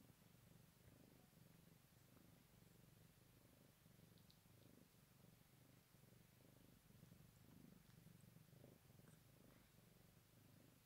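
Domestic cat purring, a faint, low, steady purr.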